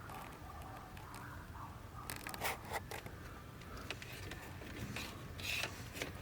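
Hands working wiring into the fuse box: scattered small scrapes and clicks of plastic and wire, with two sharper clicks about two and a half seconds in and a brief louder rustle near the end.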